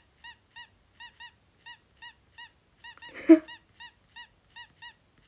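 Samsung Galaxy A20e dial-pad key tones in the 'Fun' system sound theme: short, bright electronic chirps that rise and fall in pitch, about three a second, one for each key tap. A single louder, noisier burst cuts in about three seconds in.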